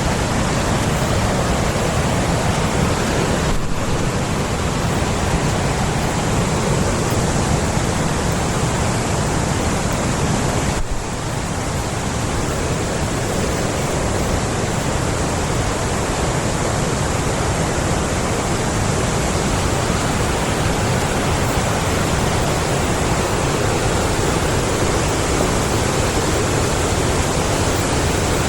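Forest stream rushing, a loud, steady rush of flowing water with a brief dip in level about eleven seconds in.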